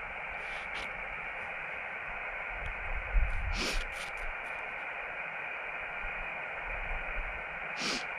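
Portable HF transceiver's speaker hissing with band noise on an open voice channel between contacts, a steady static cut off at the top like a radio's narrow voice filter. A few brief clicks and a short rustle of handling about three to four seconds in and again near the end.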